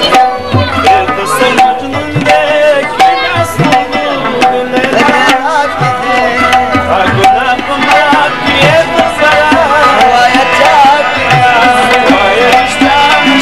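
Instrumental interlude of Afghan music: tabla playing a busy, steady rhythm under a wavering melody line over a held drone.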